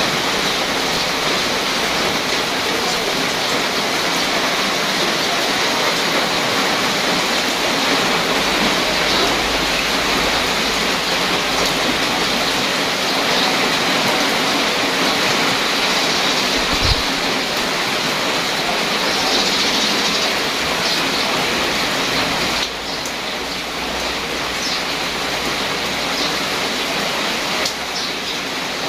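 Steady rain falling on leaves and wet pavement, an even hiss that eases slightly about three-quarters of the way through.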